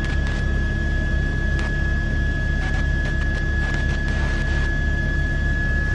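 News helicopter noise heard inside the cabin: a steady, evenly pulsing low rotor throb under a constant high tone.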